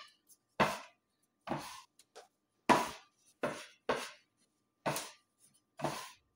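A bench scraper knocking on a wooden tabletop as it cuts and folds soft bread dough, with about seven sharp knocks roughly a second apart.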